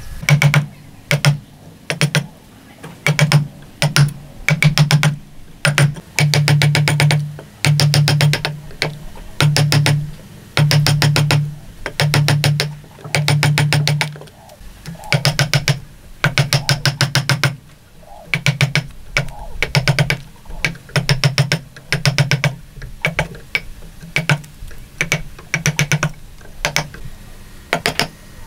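Wood chisel paring the end grain and walls of a mortise in short strokes, each a rapid rasping chatter lasting under a second, repeated about once or twice a second.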